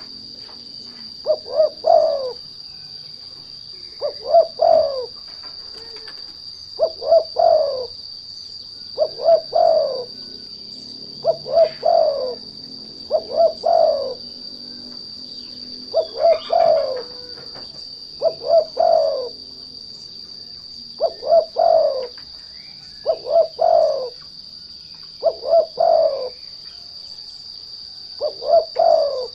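A spotted dove (derkuku) cooing over and over, a lure song used to provoke other doves into calling. It gives a phrase of three or four quick coos every two seconds or so, each ending in a longer falling note. A steady high insect drone runs underneath.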